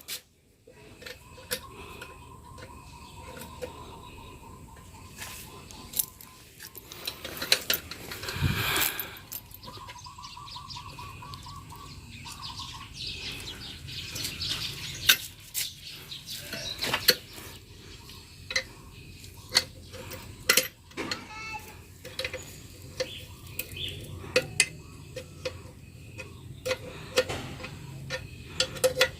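Irregular metallic clinks and knocks from hands and tools working on the parts of a hand-operated water pump while its seal is being repaired.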